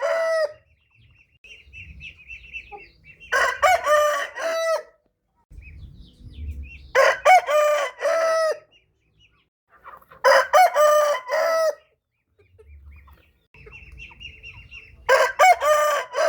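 Rooster crowing repeatedly: four loud cock-a-doodle-doo crows about every three to four seconds, with fainter high-pitched chicken calls in between.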